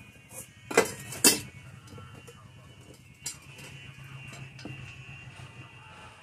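Two sharp knocks about half a second apart as a motorcycle wheel with its tyre is set down on a concrete floor, then quieter handling of the tyre and inner tube over a steady low hum.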